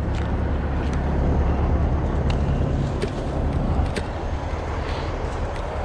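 Heavy diesel truck engine running steadily, with a few faint clicks and clanks of metal.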